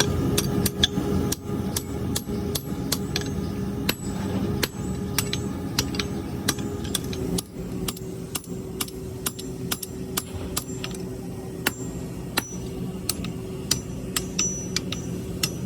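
Irregular hammer blows striking steel while blacksmith tongs are forged, each strike sharp with a short metallic ring, over a steady low machine hum.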